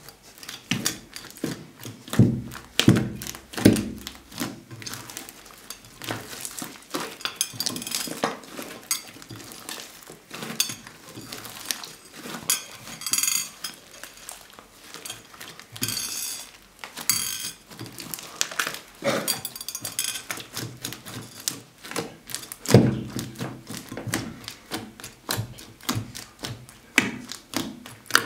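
Fluffy slime with small beads mixed in being squeezed, kneaded and stretched by hand in a glass dish: a dense, irregular run of sticky clicks, crackles and pops. Heavier squelching thumps come a couple of seconds in and again late on.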